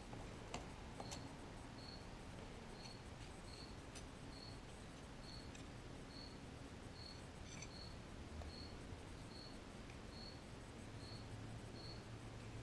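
A cricket chirping steadily, about two short high chirps a second, faint over a low electrical hum. A couple of small clicks near the start.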